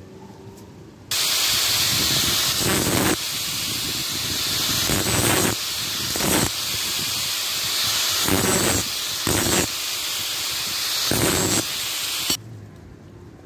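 Handheld angle grinder switched on about a second in and running at a steady whine, with about six louder bursts as the disc bites into the edges of small square steel plates to grind them clean. It cuts off suddenly about a second before the end.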